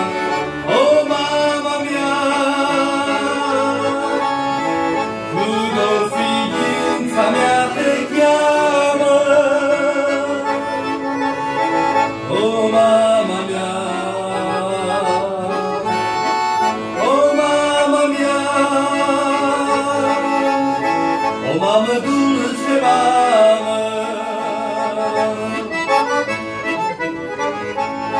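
Piano accordion playing an instrumental break between sung verses: a sustained melody with quick upward runs every few seconds.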